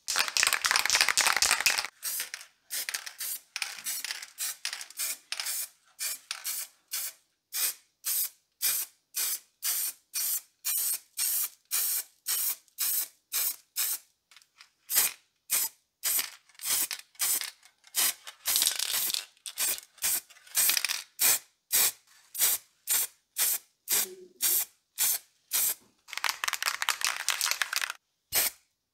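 Aerosol spray paint can hissing in short puffs, about two a second, with a couple of longer continuous sprays at the start and near the end.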